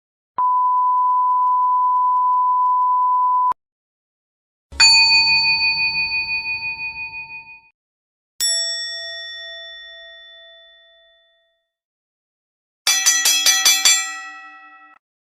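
A series of TV sound effects: a steady 1 kHz beep of the kind used to bleep out words, lasting about three seconds. Then two separate bell-like dings, each ringing out and fading over two to three seconds, the second one lower. Near the end comes a quick run of about ten rapid bell strikes.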